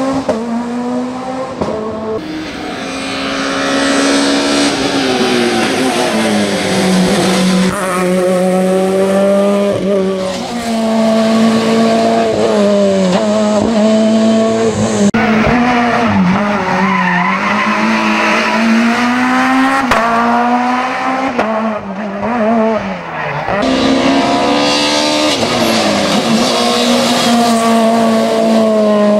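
Peugeot 207 S2000 rally car's naturally aspirated 2.0-litre four-cylinder engine driven hard, its pitch climbing under acceleration and dropping on each lift-off and gear change, again and again through the corners.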